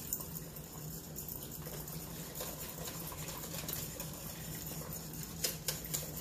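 Silicone spatula stirring chocolate syrup in a stainless steel stockpot on the stove: a soft, wet swishing and scraping, with a few light taps against the pot near the end.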